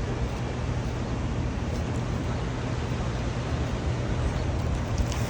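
Steady rushing noise with a deep, even rumble underneath.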